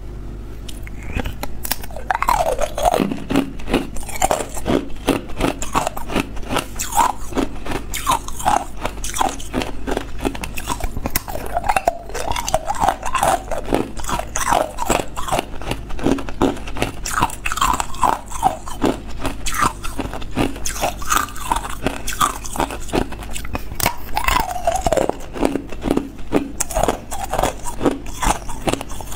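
Hard ice cubes bitten and chewed right at a clip-on microphone: a dense, unbroken run of crunches.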